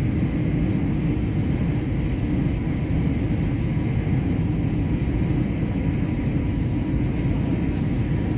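Steady cabin noise of a jet airliner on its low approach: engine and airflow rumble with a faint steady whine above it.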